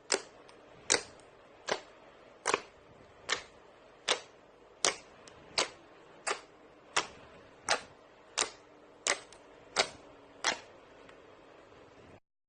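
Slime being pressed and poked, giving sharp clicking pops at an even pace, about fifteen in a row a little under a second apart. The clicks stop about two seconds before the end.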